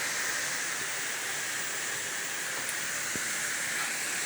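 Steady rushing hiss of a cruise ship's mechanical-room machinery, with one soft knock about three seconds in. The knock is part of the recurring click-thump knocking that sounds almost like somebody beating on a pipe.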